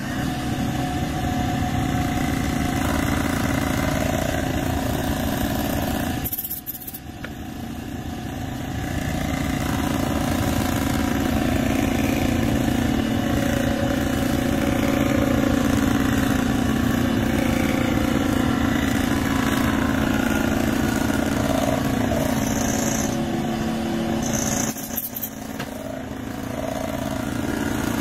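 Cylinder head resurfacing machine milling the aluminium head's gasket face: a steady mechanical running drone as the cutter passes across the head. It dips briefly about six seconds in and again near the end.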